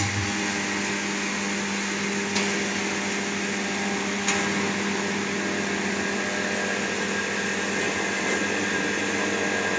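Chamber vacuum packing machine pumping the air out of its closed chamber around a food bag. The vacuum pump runs with a steady hum and hiss, with two faint clicks about two and four seconds in.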